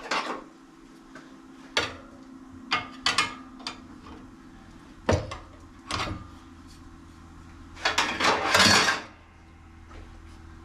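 Metal tools and tire-changer parts clanking and knocking, about eight sharp strikes spread out, over a steady low hum. Near the end comes about a second of hissing noise, the loudest sound.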